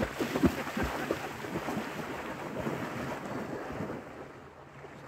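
A person wading fast into a lake, legs splashing through the shallow water; the splashing fades about four seconds in.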